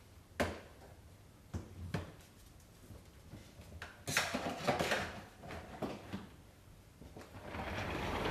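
Hard objects being handled: a few separate knocks, then a burst of clattering and rattling about four seconds in, with a rising rushing noise near the end.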